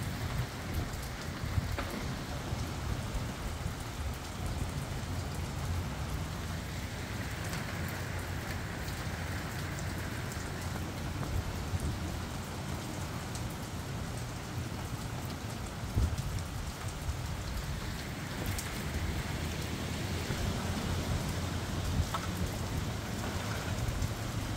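Steady rain falling, with sharp ticks of individual drops striking close by and a low steady rumble underneath.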